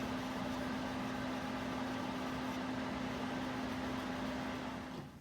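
A machine running with a steady hiss and a constant low hum, which cuts off about five seconds in.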